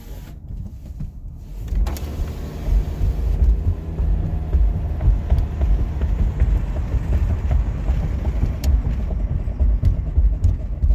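Car on the move: a steady low rumble of road and engine.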